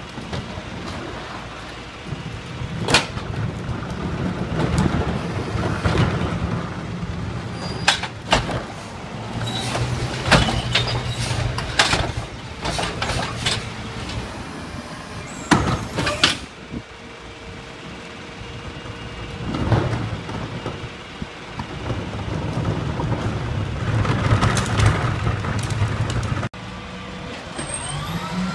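Peterbilt 310 garbage truck's diesel engine running and speeding up in spells as the Heil Formula 5000 rear loader's hydraulics work. Over it come several sharp metal clanks and bangs as the cart tipper lifts a recycling cart and dumps it into the hopper.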